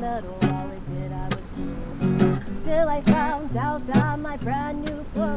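Background music: strummed acoustic guitar with a singing voice over a steady beat.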